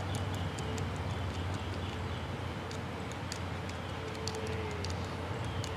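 Outdoor background: a steady low hum with many light, irregular ticks, several a second.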